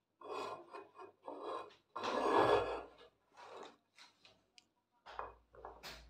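Handling noise: irregular rubbing and scraping in several short bursts, the longest and loudest about two to three seconds in, as the phone and the coffee mug are moved about in the hand.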